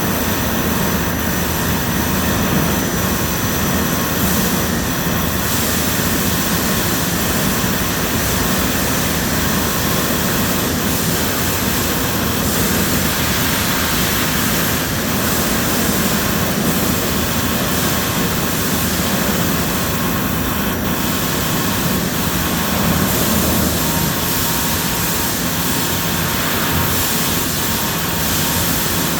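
CNC machine tools running steadily in a machine shop: a constant, even mechanical noise with a few faint steady tones in it.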